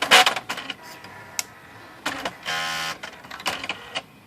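Brother SX-4000 electronic typewriter powering up and running its reset cycle: a burst of clatter and clicks from the carrier and print mechanism, then a short steady motor buzz about two and a half seconds in, and a few more clicks near the end.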